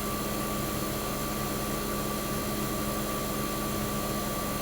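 1965 Fedders Weather Wheel 12,000 BTU window air conditioner running with a steady hum: its Tecumseh AJ reciprocating compressor and fans are both on. It is running normally and cooling, on its first startup of the season.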